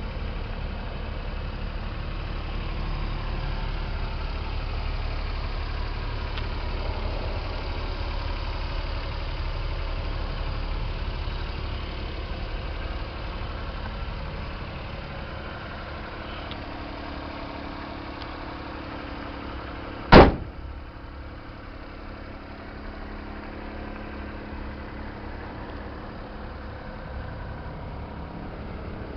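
Daihatsu Hijet mini truck's small engine idling steadily, louder at first while heard from inside the cab. About two-thirds of the way through, a cab door shuts with a single loud, sharp slam.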